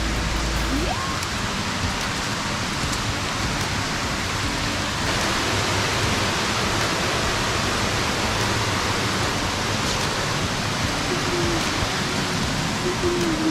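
Steady rush of falling water from a waterfall, an even hiss across the range with no breaks; it turns a little brighter about five seconds in.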